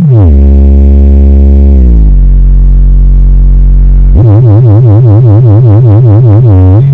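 Very loud synthesized bass tones from a large carnival sound system. A low buzzing note drops in pitch at the start and again about two seconds in, then holds steady. From about four seconds in it turns into a fast wobbling tone, about five wobbles a second, and drops again at the end.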